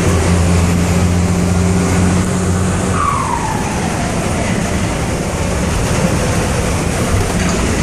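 Turbo-diesel engine of a Volkswagen 210 bus running under way, its turbo fitted with a pente to make it whistle. About three seconds in the steady engine note breaks off and the turbo lets out a whistle that falls in pitch as it spools down.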